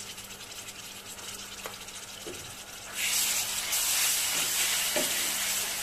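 Onions and ginger-garlic paste frying in hot oil in a pan: a quiet steady sizzle that turns louder about three seconds in as a spatula starts stirring, with a few light scrapes of the spatula against the pan.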